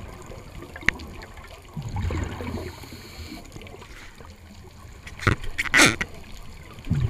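Underwater scuba breathing heard through a diving camera's housing: rumbling bursts of exhaled regulator bubbles about two seconds in and again near the end, with a louder bubbling gurgle around five to six seconds in.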